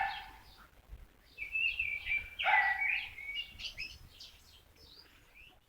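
Songbirds singing in trees: a run of gliding whistled notes and quick chirps, busiest in the middle and thinning out near the end, after a short sharp sound right at the start.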